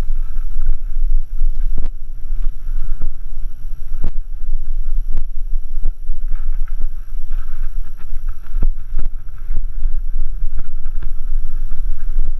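Wind buffeting the microphone of a camera on a mountain bike riding down a rough dirt trail, a loud, steady rumble, with sharp knocks and rattles from the bike over the ground about once a second.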